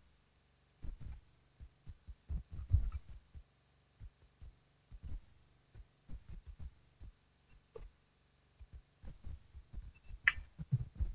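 Irregular soft low thumps and rumbles of wind buffeting the eagle-nest camera's outdoor microphone, with one sharper knock about ten seconds in.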